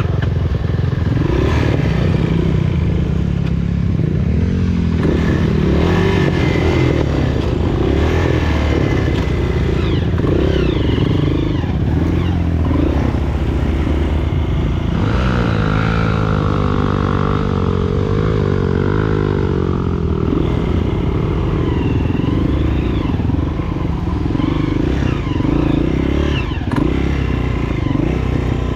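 Honda CRF230F dirt bike's single-cylinder four-stroke engine running under load, its revs rising and falling as it is ridden.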